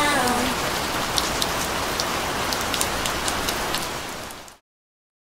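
Steady rain falling, with scattered individual drops ticking through it. It fades away over about a second and then cuts to silence.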